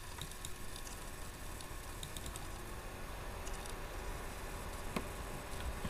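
Faint scattered clicks of a computer mouse and keyboard over a low steady hum.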